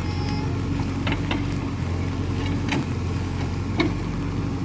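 Case 851EX backhoe loader's diesel engine running steadily, with four or five short sharp knocks over it.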